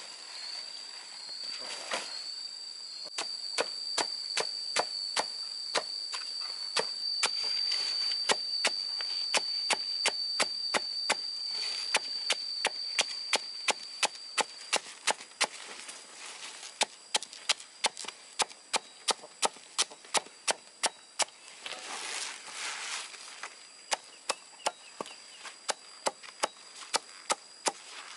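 Repeated sharp chopping strikes at an even pace of about two to three a second, with a brief noisier break about three quarters of the way through. A steady high insect buzz runs beneath them and stops about halfway through.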